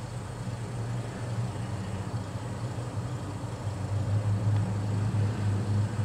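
Steady low hum of an idling engine, a low drone that swells and fades slightly in level.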